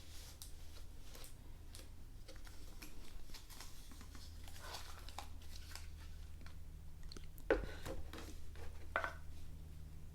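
Faint handling noises from a collectible statue being turned over in the hands: scattered light clicks and rustles, with two soft knocks about 7.5 and 9 seconds in, over a steady low hum.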